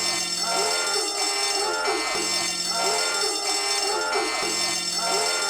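Homemade electronic alarm sound: a short pattern of tones that loops about every two and a quarter seconds. Each round opens with a low hum and goes on with several bending, higher tones.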